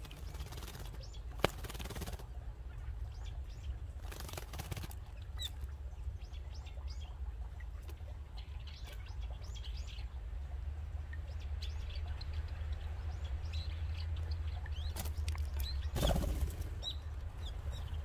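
Small songbirds, among them a brown-eared bulbul, bathing in a shallow tub of spring water. There are short bursts of splashing and wing fluttering, the strongest about sixteen seconds in, with scattered short high bird chirps between them over a steady low rumble.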